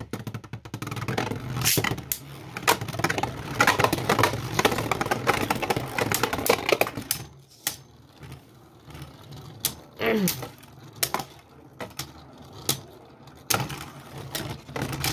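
Beyblade Burst spinning tops whirring and scraping on a plastic stadium floor and clashing together. A dense clatter of knocks lasts for about the first seven seconds, then gives way to sparser, separate sharp hits as the tops slow down.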